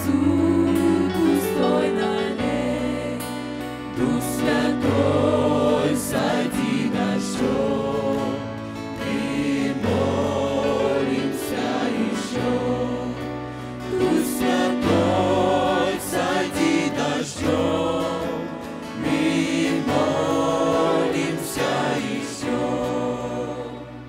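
Mixed choir of young men and women singing a church song in harmony, over instrumental accompaniment whose sustained bass notes change every couple of seconds. The music fades near the end.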